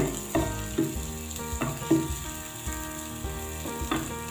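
Chopped onion and garlic sizzling in hot butter in a nonstick frying pan, stirred with a wooden spatula that scrapes the pan every half second or so.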